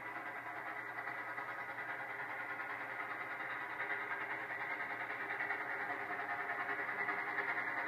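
Nickel Plate Road 765, a 2-8-4 Berkshire steam locomotive, approaching under power, its exhaust chuffing in a steady beat of about three a second that grows louder as it nears.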